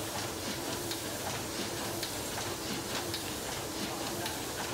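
Automatic packaging machinery running steadily: a constant hiss with a quick, irregular clatter of small clicks and clacks.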